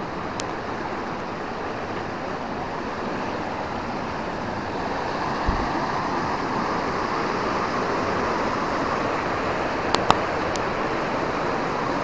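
River water rushing over rocks in a steady rush that grows slightly louder about halfway through, with a few sharp clicks near the end.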